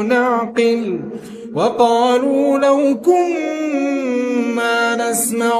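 A solo male voice reciting the Quran in melodic tajweed, holding long drawn-out notes. There is a short break about a second in, then the voice glides up and carries on.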